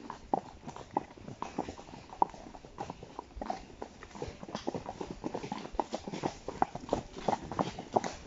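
Horses' hooves clip-clopping on a leaf-covered dirt track: an uneven run of short knocks, several a second.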